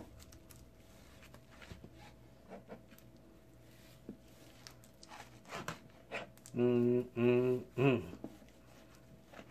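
A slicer knife drawing through cooked brisket, with faint scrapes and light taps of the blade on the cutting board. About six and a half seconds in, a man hums three times with his mouth closed, the last one falling in pitch, as if in appreciation.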